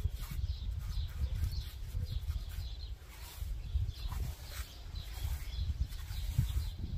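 Paintbrush scrubbing and dabbing lime whitewash into rough, pitted stone in quick short strokes, over a steady low rumble.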